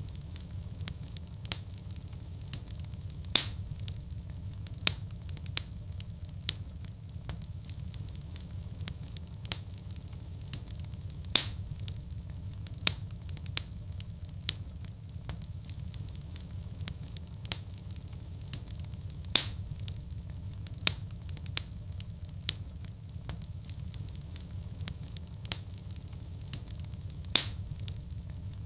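Fire in a fireplace crackling: scattered sharp pops and ticks over a steady low rumble of burning, with a few louder pops standing out.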